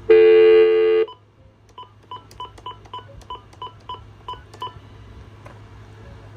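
RadioShack 43-1704 two-line cordless phone going off-hook with a loud steady tone for about a second, then about ten short beeps of the same pitch as a phone number is keyed in.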